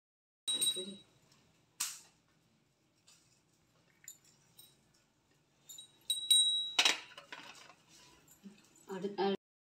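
Small metal items clinking with short, high ringing tones, in one cluster near the start and another around six to seven seconds in, among scattered soft handling knocks.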